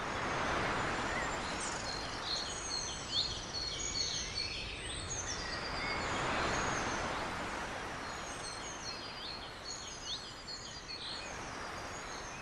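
Open-sea wash and wind around a small outrigger boat, swelling twice, with a string of faint, high, bird-like chirps through the middle.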